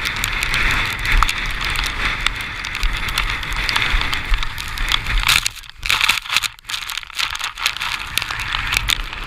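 Windsurfing at speed across choppy sea: a steady rush of wind and water with fine crackling of spray and chop, and low buffeting of wind on the microphone. The rush breaks up into a few short gaps past the middle.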